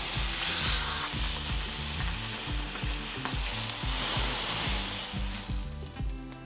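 Boneless prime rib roast searing in a hot cast-iron skillet: a steady frying sizzle as the meat's surface and fat hit the pan, fading away near the end as the roast is lifted out. Background music with a steady beat plays underneath.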